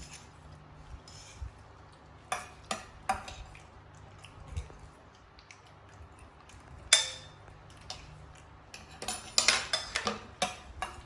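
Scattered clinks and knocks of dishes and kitchen utensils being handled, the loudest about seven seconds in, with a quick run of clinks near the end.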